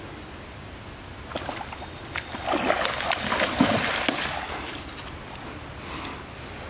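Hard, irregular water splashing with sharp slaps, from a fish thrashing at the surface of a creek. It starts about a second and a half in, is loudest in the middle and dies away a little after five seconds.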